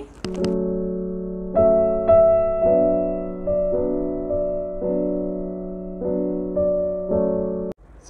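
Background piano music: a slow run of chords, each struck sharply and fading as it rings. It stops abruptly shortly before the end.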